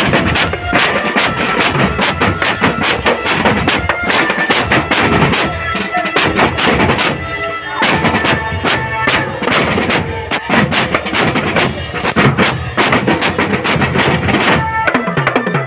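Marching drum band playing: rapid, dense snare and bass drum beats with short melodic notes from pitched band instruments on top.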